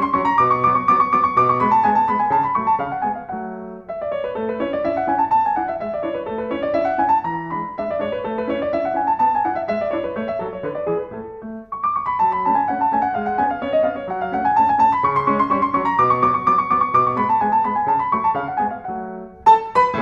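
Background piano music: phrases of notes running up and down in repeated waves.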